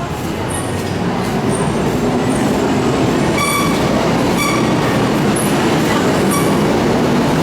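Loud steady rumble of a large road vehicle close by, with a few short high-pitched squeals, the clearest two in the middle.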